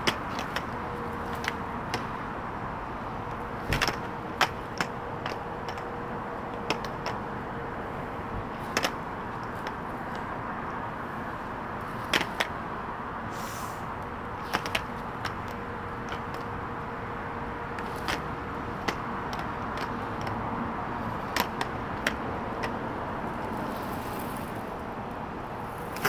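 Quad roller skates rolling over concrete, with irregular sharp clacks as the skates' wheels and toe stops are set down and tapped during footwork.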